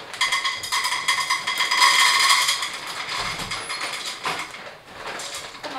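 Dry dog food poured from a bag into a bowl: a dense rattle of kibble hitting the bowl for about two and a half seconds, then softer rustling and scattered clicks as the pouring tapers off.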